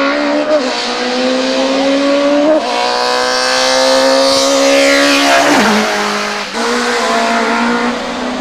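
A supertouring race car's four-cylinder engine at full throttle, climbing in pitch and upshifting twice. It passes close by about halfway through, its pitch sweeping sharply down, then runs on at lower pitch as it pulls away.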